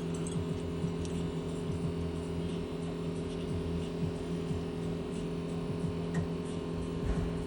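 Steady electrical hum made of several constant tones, with faint small ticks and taps now and then.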